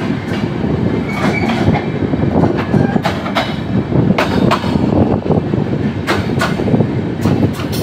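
Steel wheels of a broad-gauge train knocking and clanking over the points at low speed as the train crosses from the loop line to the main line, iron striking iron. The knocks come at irregular intervals, about ten of them, over a steady running rumble of the coaches.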